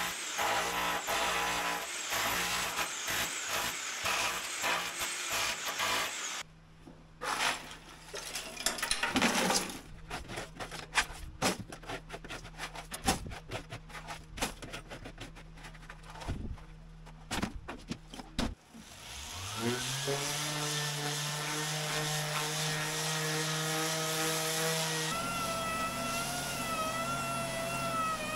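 Electric chipping hammer hammering rapidly as its chisel breaks old Chockfast epoxy chocking off a steel engine bed. Then a steady low hum with scattered clinks and knocks of chips being handled, and a hand-held power tool whose motor whines up in pitch and runs steadily, shifting pitch near the end.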